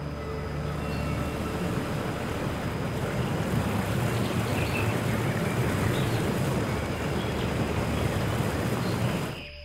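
A steady rushing noise, even and loud, that cuts off abruptly near the end.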